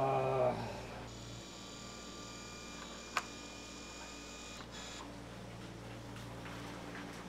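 Electronic door lock being opened from a phone app over Bluetooth: a steady high electronic whine for about four seconds with a sharp click partway through, then another click near the end.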